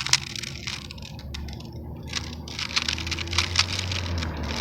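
Rubik's Cube being turned: a quick run of plastic clicks and scrapes as the layers rotate, over a low steady hum that grows louder from about a second in.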